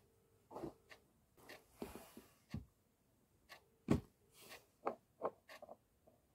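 Handling noise: irregular rustles, taps and soft knocks of a person moving and touching things right next to the microphone, the loudest knock about four seconds in.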